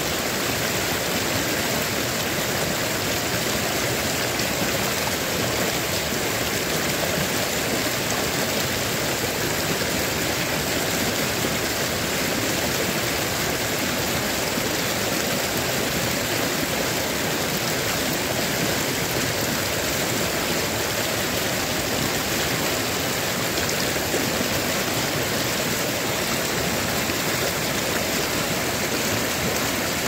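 Shallow rocky stream rushing steadily over stones and small rapids, an even, unbroken water noise.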